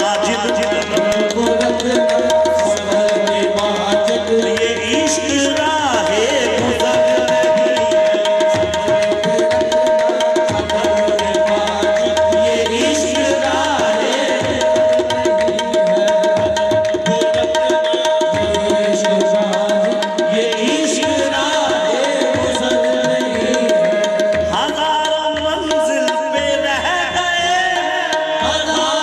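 Qawwali ensemble playing. A harmonium holds a steady note, while hand drums and hand-clapping keep a fast rhythm. Every so often the singer's voice sweeps up and down in long runs.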